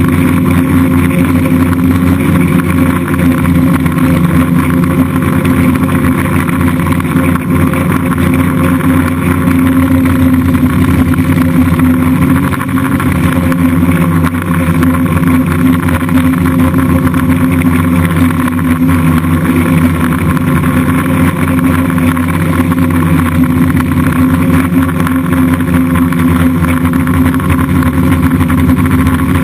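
Electric motors and propellers of an F550 hexacopter running in flight, a loud steady buzzing hum with several fixed pitches that dips slightly about twelve seconds in.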